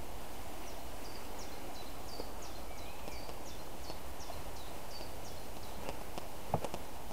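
A small bird calling over steady background noise: a run of short, high chirps, each falling in pitch, about two a second for some five seconds. A few sharp clicks follow near the end, one louder than the rest.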